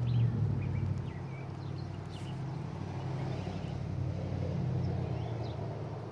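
Low steady mechanical hum, swelling a little past the middle and fading near the end, with a few faint high chirps.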